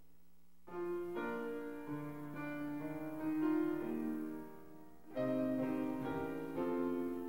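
Slow instrumental keyboard music: held chords in unhurried phrases, with a brief lull and a new phrase beginning about five seconds in.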